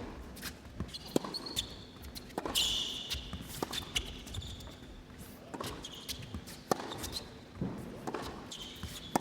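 Tennis rally on an indoor court: rackets striking the ball in sharp pops about once a second, with tennis shoes squeaking on the court surface in between.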